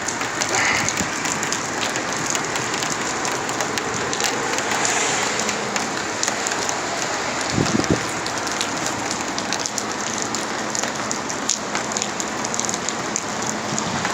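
Heavy thunderstorm rain beating steadily on a car, with dense drop clicks. A single brief low thump comes a little past halfway.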